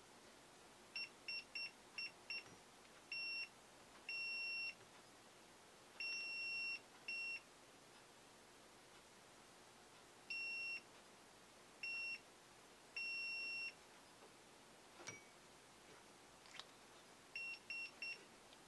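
Electronic beeper sounding one steady high pitch in irregular beeps: a quick string of short beeps, then several held for up to about a second, and three quick ones near the end. A faint click falls in a gap between them.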